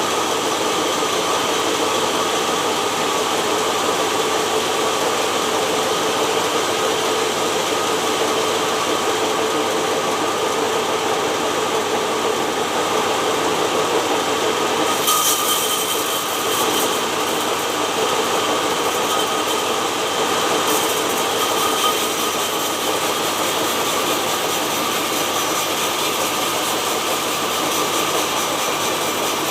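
Sawmill machinery running steadily with a constant hum; a brighter hiss joins it about halfway through.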